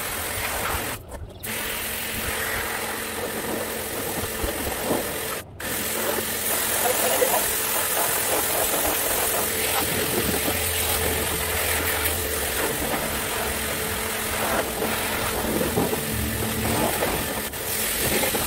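Pressure washer running and jetting water onto a motorcycle: a steady hiss of spray over a steady motor hum. It cuts out briefly twice, about a second in and again around five and a half seconds.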